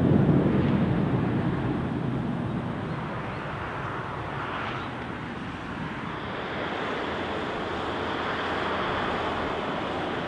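Jet airliner engines rumbling as a Boeing 737-800 climbs away after takeoff, loudest at the start and fading over the next few seconds. About two-thirds of the way in, a steady hiss of wind and distant airport noise takes over.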